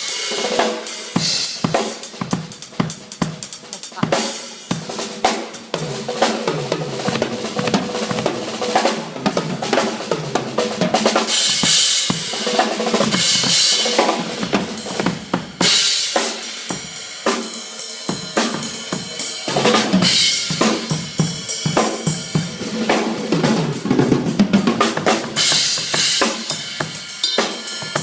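Drum kit played continuously with rapid bass drum, snare and rimshot hits under cymbal crashes and hi-hat, during a sound check.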